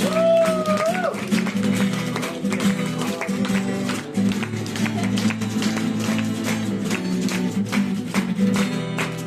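Band music with strummed guitar chords and a steady beat, an instrumental passage of the song. In the first second a single held note wavers and then rises.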